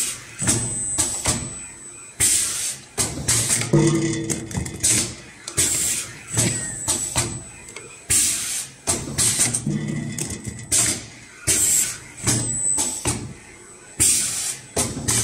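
Automatic rotary-table spin welding machine cycling: repeated short, sharp hisses of compressed air from its pneumatic cylinders and gripper, with a brief low hum about every six seconds as the cycle repeats.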